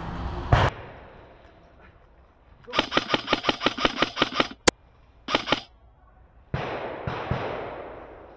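Airsoft electric rifle firing: a rapid full-auto burst of about two seconds, a single sharp crack, then a short burst of about three shots. A thump comes about half a second in, and a noisy rush near the end fades away.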